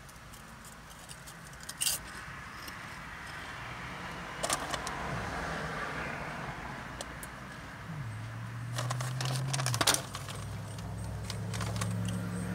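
Foil snack bag crinkling as a hand reaches into it, in a few sharp bursts, with the crunch of chewing puffed corn snacks. A low steady hum comes in near the end.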